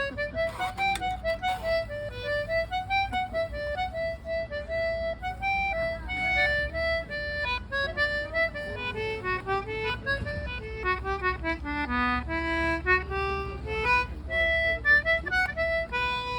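Concertina playing a tune, a continuous melody with quick runs of short notes.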